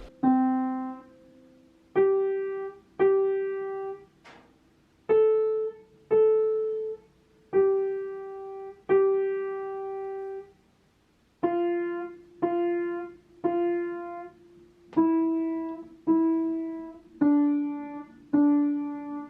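Outro music: a slow piano melody of single notes, each struck and fading away, about one a second, with a short pause near the middle.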